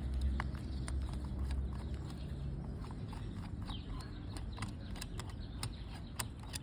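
Scattered light clicks and taps of small hand tools and parts on a carburetor body, as its pilot jet is worked loose, over a faint low hum.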